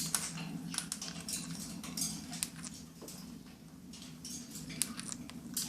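Senegal parrots moving about in their cage and nest box, giving irregular scratchy rustles and small clicks, over a steady low hum.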